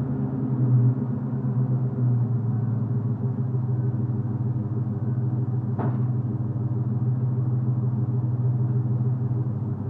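1994 Mustang Cobra's 5.0-litre V8 idling steadily through an SLP Loudmouth cat-back exhaust with stock H-pipe and catalytic converters: a deep rumble. A single brief click about six seconds in.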